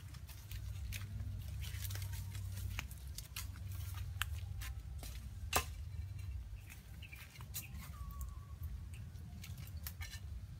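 Scattered crackles and snaps of dry twigs and leaves being disturbed in undergrowth, with one sharper click about halfway through, over a steady low hum.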